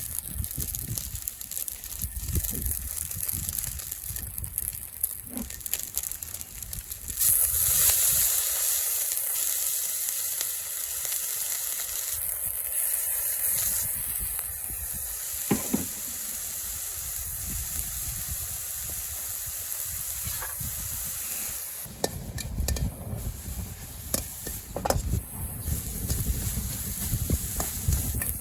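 Food frying in hot oil in a two-handled Chinese wok over charcoal. About seven seconds in, something goes into the pan and it flares into a loud sizzle that settles to a steady one. Near the end, stirring knocks and scrapes in the wok.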